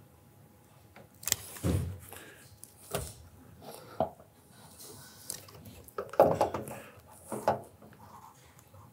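A caulking gun and hand tools being handled against standing seam metal roof panels: a string of separate clicks and clanks, the loudest about six seconds in.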